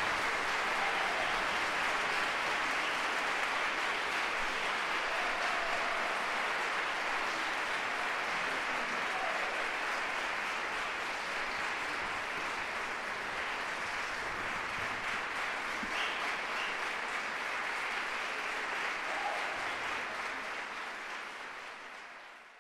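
Audience applause, a long steady clapping that fades out near the end.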